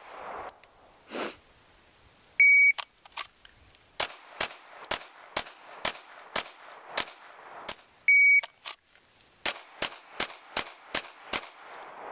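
A shot timer beeps with one sharp tone, and a pistol fires a quick string of about a dozen shots. About eight seconds in a second timer beep starts another rapid string of shots.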